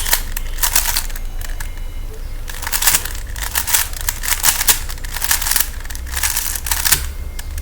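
Plastic Rubik's Cube being handled and its layers turned, giving irregular bunches of quick clicking rattles.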